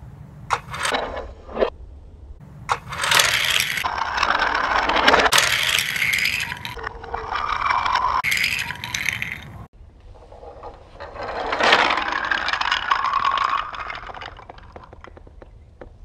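Wooden toy train engines rolling along wooden track, their wheels rattling and scraping in two long runs. There are a few sharp clicks before the first run and faint ticks after the second.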